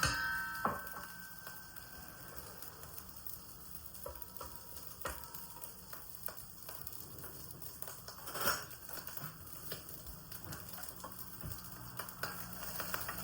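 Food sizzling and frying in a pan, a steady crackle, with scattered clicks of a utensil against the pan and a short louder rush of sizzle about eight and a half seconds in.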